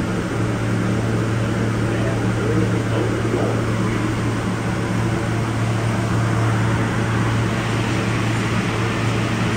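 New York City subway car running through a tunnel, heard from inside the car: a steady rumble of wheels on rails with an even low hum underneath.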